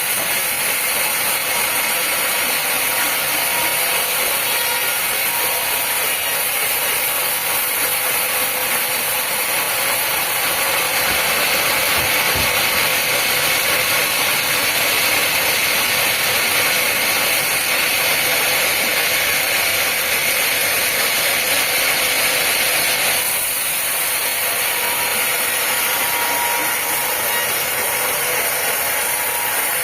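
A sawmill blade cutting through a teak log: a steady, high, hissing saw noise that changes slightly about three quarters of the way through.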